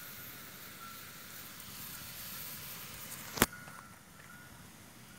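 Steady hiss of a pot of syrup simmering over a wood fire as it starts to thicken. A single sharp click comes about three and a half seconds in, after which the hiss is softer.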